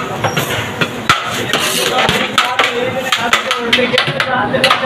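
Metal serving spoon knocking and scraping against a large metal cooking pot as biryani rice is scooped out, many quick clinks in irregular succession, over background voices.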